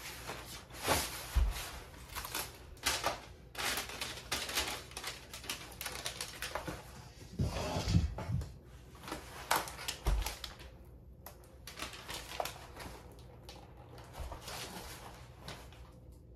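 Irregular rustling, crinkling and clicking of packaging being handled, with a few dull thumps, about a second and a half, eight and ten seconds in, as flat-pack desk pieces are moved.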